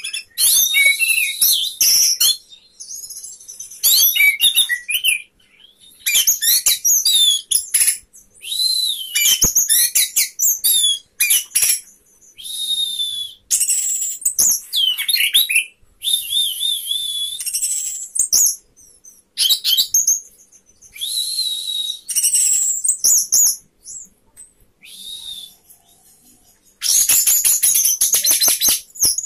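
Caged orange-headed thrush singing: loud, fast, high twittering phrases a second or two long, broken by short pauses, with a longer unbroken burst near the end.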